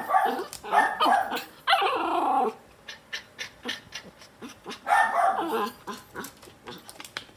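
Schnauzer puppy making gurgling, growly barks in short bursts, three close together at the start and another about five seconds in, with a run of quick sharp clicks in the quieter stretches between.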